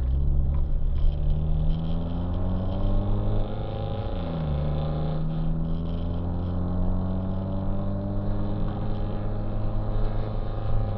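Car engine heard from inside the cabin, pulling up through the gears. The pitch drops at a gear change right at the start, climbs, drops at another shift about four seconds in, then rises slowly as the car gathers speed.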